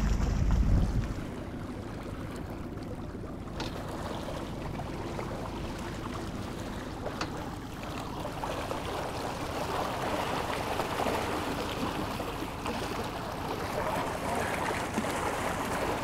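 Sea water sloshing and splashing against a boat's hull as a hooked striped marlin is held alongside, a steady rushing that grows a little louder in the second half. A low rumble fills the first second.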